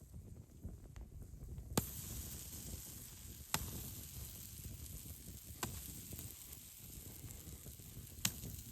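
Yeast flatbread batter sizzling in a hot pan. The sizzle sets in about two seconds in, with a few sharp pops spaced a couple of seconds apart.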